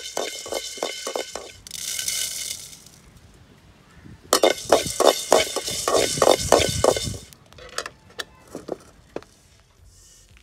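Metal spatula scraping and clinking in a metal kadai as dry ingredients are roasted, in bursts of quick strokes about four a second with a short ringing after each. A brief hiss comes about two seconds in.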